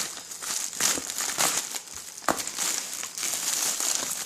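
Parcel packaging being crinkled and pulled open by hand: irregular crackling with a couple of sharp snaps about a second and a little over two seconds in.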